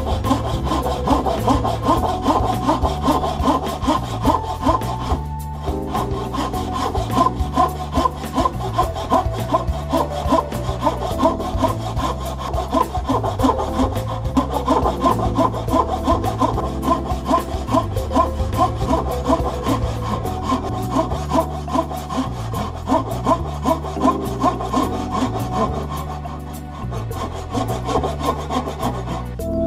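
Single-edged Japanese pull saw cutting across hard maple, in quick, even strokes about two a second, with a short break about five seconds in.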